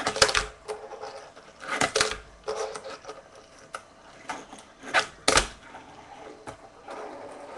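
Tech Deck fingerboard popping and landing on a wooden desk during ollie and kickflip tricks: sharp plastic clacks at irregular intervals, the loudest near the start, about two seconds in, and two close together around five seconds in.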